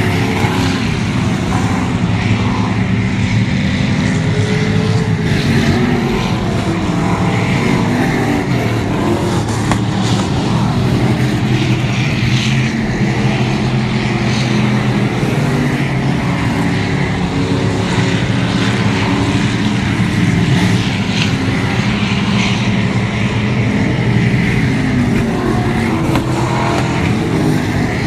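Several street stock race cars running together at racing speed, their engines merging into a loud, steady drone whose pitch rises and falls.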